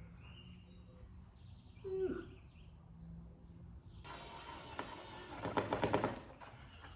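Solder being melted onto a motor terminal with a soldering iron: a crackling hiss of burning flux that starts past the middle and grows louder for about two seconds before stopping. A brief faint sound comes a couple of seconds in.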